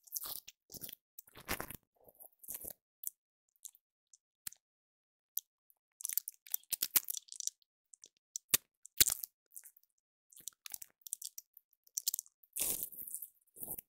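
Workshop handling noise: hand tools and a cordless brad nailer being picked up, moved and set down on a wooden workbench, giving scattered clicks, knocks and short scrapes, with the sharpest clicks a little past the middle.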